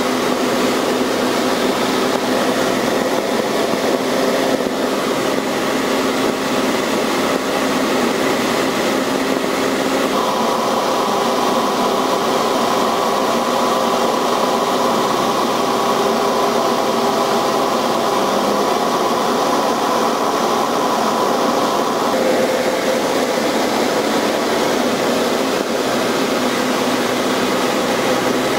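Light aircraft's piston engine and propeller running steadily in flight, heard from aboard the plane. The tone shifts about ten seconds in, when a steady higher note joins, and again about twenty-two seconds in, when that note drops out.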